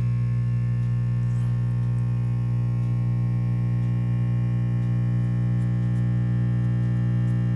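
Steady mains hum from the speaker of a Silvertone 6050 tube radio, holding level with no station or audio on top. The restorer takes it for a sign that the filter capacitors are likely bad, low in capacitance.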